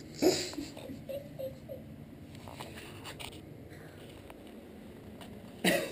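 A wet kitten being handled and rubbed in a bathtub during its bath: brief wet rubbing and splashing noises, with three faint short high squeaks about a second in and another sudden noisy burst near the end.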